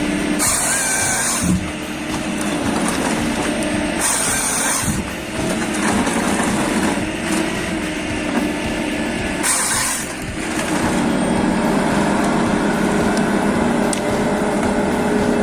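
A heavy diesel engine running steadily, with three short, loud hisses, about half a second, four seconds and nine and a half seconds in.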